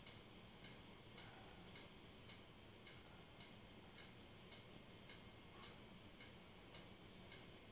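Near silence with a faint, even ticking, a little under two ticks a second.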